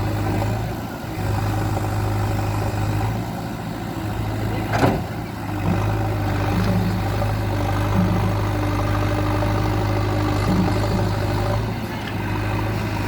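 JCB 3DX backhoe loader's diesel engine running steadily, with a single sharp knock about five seconds in.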